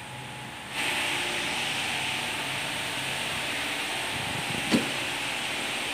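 A steady, even rushing hiss that starts abruptly about a second in and holds level, with one short knock about three-quarters through.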